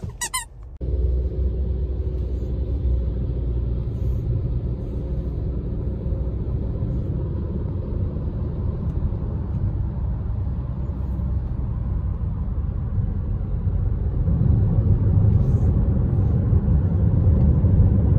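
Steady low road and engine rumble heard inside a moving car's cabin, growing louder about three-quarters of the way through. A brief high squeak sounds right at the start.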